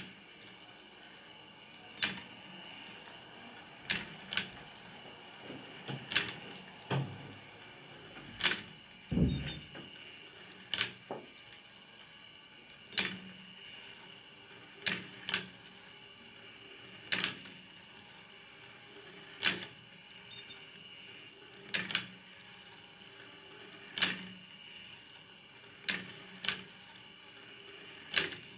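Plastic marble-run toy machine running: its small motor and chain lift hum steadily while glass marbles click through the tracks and lift, a sharp click about every two seconds, sometimes two close together. A duller, lower knock about nine seconds in.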